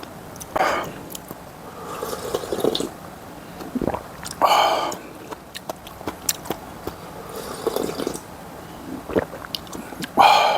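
Close-miked eating sounds of samseon jjamppong, a spicy seafood noodle soup: wet slurps of noodles and broth with chewing and mouth smacks between them. Three louder slurps come about a second in, midway and at the very end.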